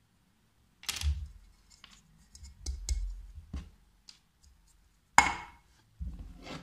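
Handling noises as carbon rods and a thin plastic bowl are put down and picked up on a tabletop: a rustle, scattered light clicks and knocks, and a sharper knock just after five seconds.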